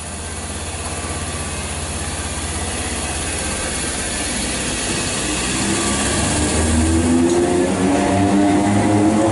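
Greater Anglia electric multiple unit pulling away from the platform: a low electrical hum, then from about halfway through a whine of several tones from the traction motors, rising steadily in pitch and growing louder as the train accelerates.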